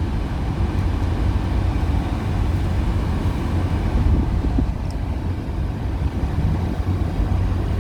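Inside the cabin of a 2002 Toyota Solara convertible on the move: a steady low rumble of engine and road noise.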